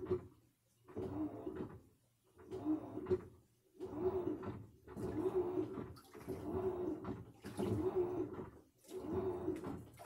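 Samsung washing machine running a wash cycle, its motor hum rising and falling in regular surges about once a second as the load is worked back and forth.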